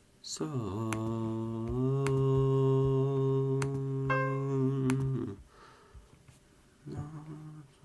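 A man humming one long low note, sliding into it and then holding it steady for about five seconds, with a brief higher pitched tone near its end. After a short pause, a few more short hummed notes follow near the end.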